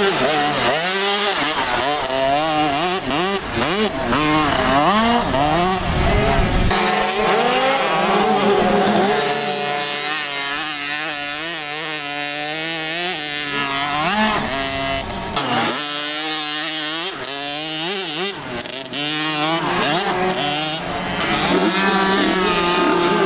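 Several motocross bikes racing, their engines revving up and falling back in pitch as riders open and close the throttle and shift gears, with more than one engine heard at once.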